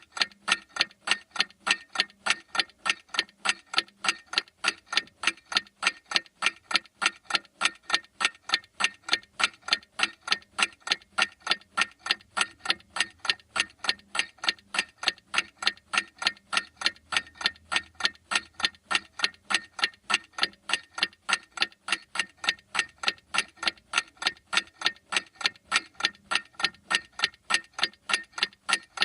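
Mechanical clock ticking, a fast, even run of sharp ticks, several a second, without a break.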